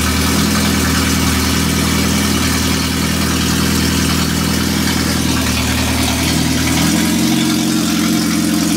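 Freshly rebuilt Mazda FE 2-litre four-cylinder engine idling steadily at just under 1200 rpm on its first run. About seven seconds in, its pitch steps up as the engine speed rises a little.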